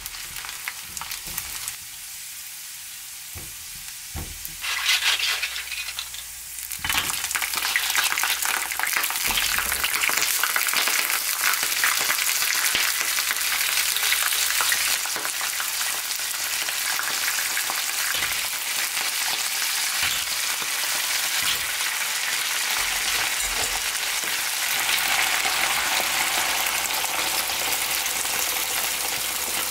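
Food sizzling as it fries in a hot pan, with scattered clicks and scrapes of stirring. The sizzle gets louder about five seconds in, and again at about seven.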